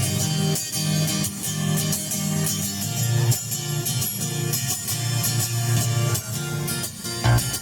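Guitar strummed in a steady rhythm through a PA, with sustained low notes underneath and no singing.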